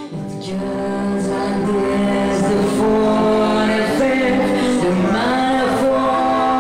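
A woman singing live into a handheld microphone, holding long notes and gliding between them.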